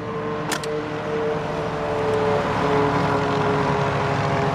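Engine drone of a road vehicle passing: a steady pitched hum that slides slowly down in pitch as it grows louder. A sharp click comes about half a second in.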